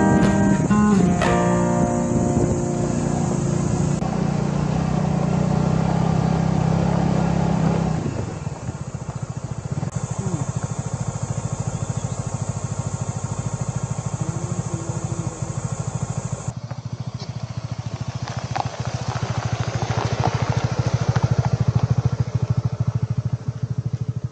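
Strummed acoustic guitar music fading out in the first couple of seconds, then a motorcycle engine running steadily with a rapid pulsing beat, growing louder in the second half.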